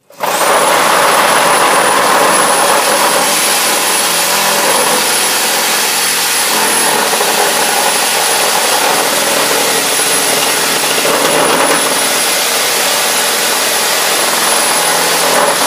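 Skilsaw 13-amp corded reciprocating saw with a 10-tooth wood blade cutting through stacked 2x4 boards. The saw starts abruptly and runs continuously at full speed, with a steady high motor whine over the rasp of the blade, and goes through the wood easily.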